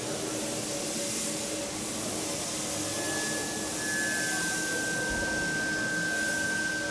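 Compressed-air paint spray gun hissing as paint is sprayed in passes, the hiss swelling and easing every second or two. A thin steady whistle joins about three seconds in.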